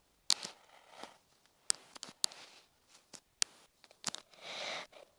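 Irregular sharp taps of fingertips and nails on a phone touchscreen while typing a chat message, with a brief hissy rustle near the end.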